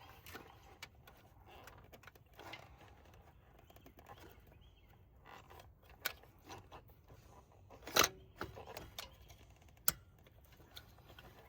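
Scattered small metal clicks and rattles of needle-nose pliers working the hose clamps and coolant hoses on a throttle body. The sharpest click comes about eight seconds in, with another near ten seconds.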